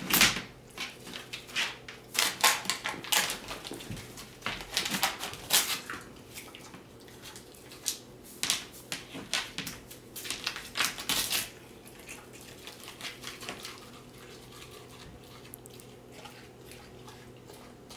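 A pet pig picking up and eating a paper dollar bill off a hardwood floor: clusters of sharp clicks and rustles for about the first twelve seconds, then only faint ones.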